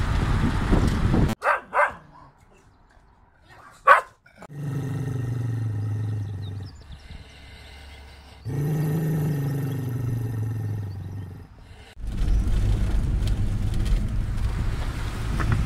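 A spaniel in a travel crate gives two quick barks and a third a couple of seconds later, then two long, low, drawn-out cries. In-car road noise is heard at the start and again for the last few seconds.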